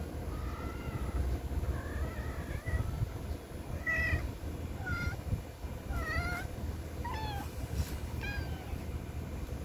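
Young kittens mewing: a series of about eight short, high-pitched mews, roughly one a second, over a steady low rumble.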